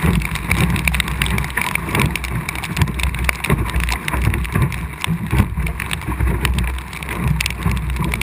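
Wind buffeting the microphone with a steady low rumble, over water slapping and splashing against a small Optimist dinghy's hull. Many short taps of spray and rain drops hit the camera housing.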